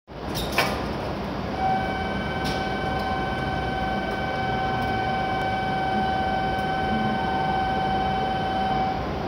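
Railway station ambience with a steady rumble of train noise. A steady, unchanging high tone with overtones sets in about a second and a half in and holds for about seven seconds.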